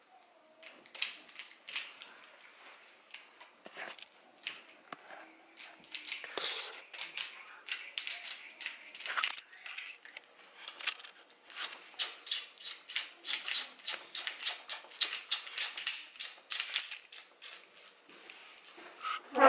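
Plastic Rubik's Cube layers being twisted by hand: a run of short sharp clacks, scattered at first, then a steady quick series of about three to four clicks a second in the second half.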